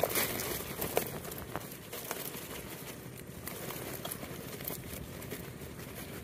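Small fish and eels being shaken from a mesh net trap into a woven plastic sack: the net and sack rustle and crinkle, with a few sharp taps in the first second and a half, then a steady low rustle.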